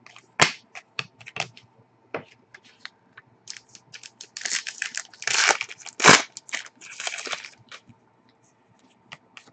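Cardboard trading cards being handled and sorted by hand: a string of light snaps and clicks, with a denser stretch of sliding and rustling cardboard in the middle.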